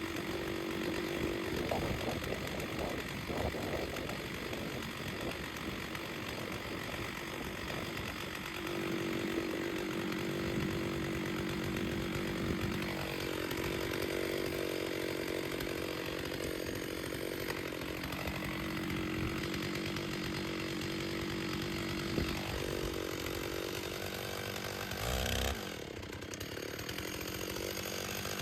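Two-stroke chainsaw running at high revs while bucking logs. Its engine note sags and recovers several times as the chain cuts through the wood.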